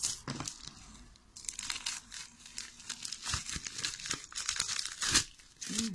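Plastic mailing bag crinkling and being torn open by hand, in a series of irregular rustles and rips, with the sharpest rip about five seconds in.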